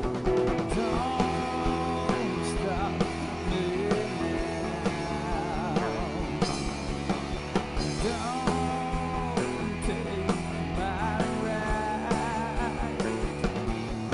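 A live rock band playing: electric guitars, bass, keyboard and a drum kit, with a held, wavering lead melody over steady chords and drum hits.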